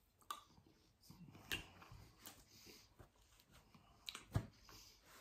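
Quiet eating of cheesecake: chewing and scattered small clicks of a plastic spoon against a plastic cup, the sharpest a little over four seconds in.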